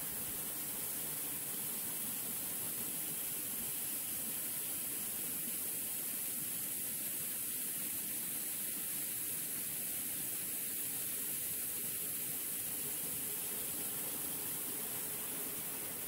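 Steady hiss of water falling down a partly frozen waterfall, running through and over the ice.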